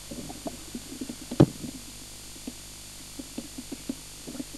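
Camera handling noise: scattered soft knocks and clicks, with one sharper knock about a second and a half in, over a steady tape-playback hiss and a low hum.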